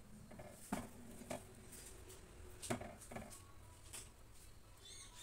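Faint scraping and a few soft knocks, about a second apart, as a silicone spatula stirs thick sabudana payesh in a steel pot.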